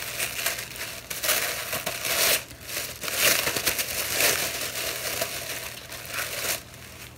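Green tissue paper crinkling and crumpling as a gift is unwrapped by hand, in uneven rustling spells that stop about six and a half seconds in.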